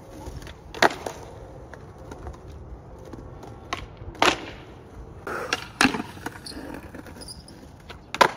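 Skateboard wheels rolling on concrete, with sharp clacks of the board popping and landing: about four loud hits, near one second in, just after four seconds, around six seconds and just before the end.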